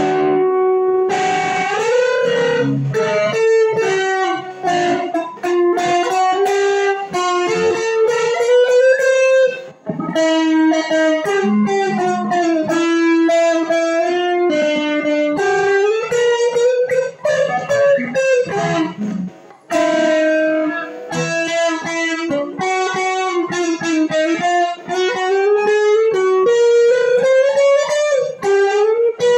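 Stratocaster-style electric guitar playing a lead melody of long, singing notes, with pitch bends and vibrato on held notes. The line runs in phrases, with short breaks about ten seconds in and again near twenty.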